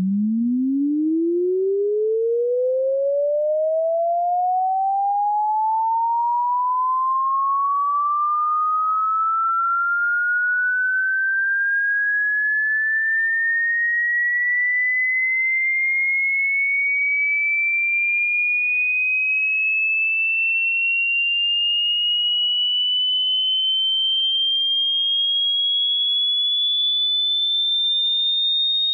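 Electronically generated pure sine tone sweeping smoothly upward in pitch, from a low hum to a high, thin whistle, rising fast at first and then more gradually, at a steady loudness.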